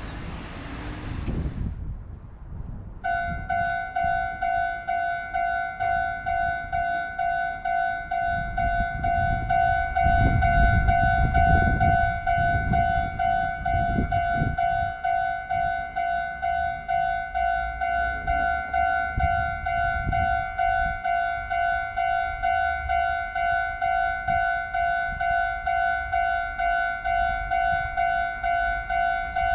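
A Japanese railway level-crossing warning bell starts about three seconds in and rings a steady, evenly repeating tone about one and a half times a second. Under it is the low rumble of a Meitetsu train running through, loudest about ten to twelve seconds in.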